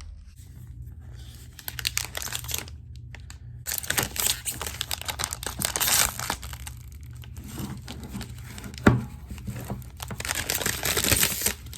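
Thin protective plastic film being peeled off an iPad and crinkled in the hands, in irregular bursts of crackling and tearing, with a single sharp tap about nine seconds in.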